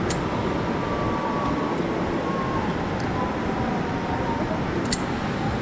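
Zipline trolley running along its steel cable: a faint whine slowly falling in pitch over a steady rushing noise, with a sharp click at the start and another near the end.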